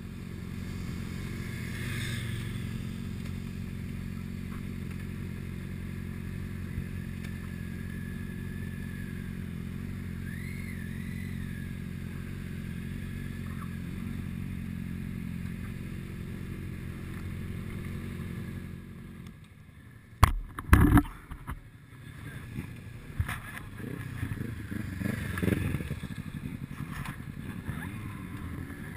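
Motorcycle engine running steadily while riding, heard from an onboard camera. About two-thirds of the way through, the engine sound drops away, and two sharp loud knocks are followed by uneven clattering and rustling noise.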